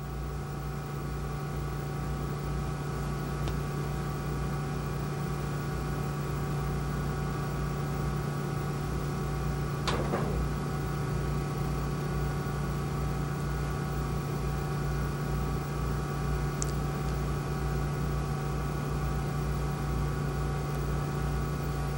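Steady electrical hum made of several steady tones, with a faint click about ten seconds in.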